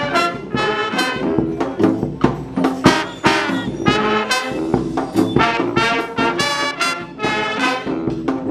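Brass band playing a lively tune, with trumpets and trombones sounding together in short rhythmic phrases.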